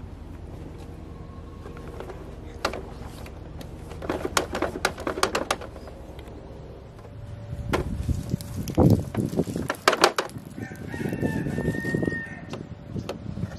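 A plastic Bruder toy street sweeper being handled and wiped with a cloth: clusters of clicks and knocks from the plastic body, loudest about nine to ten seconds in. Near the end comes a drawn-out pitched sound lasting a second or two.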